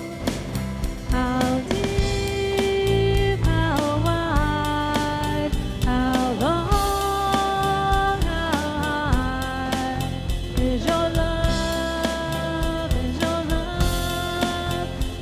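Praise band playing a worship song with drums and bass, and a lead melody that slides between held notes.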